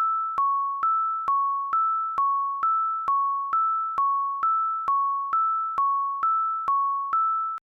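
Electronic school warning bell made of generated tones: two pitches, E6 and C-sharp 6, alternating at a steady pace, each note about half a second long and fading slightly. It runs nine high and eight low notes, starting and ending on the high note, then stops abruptly.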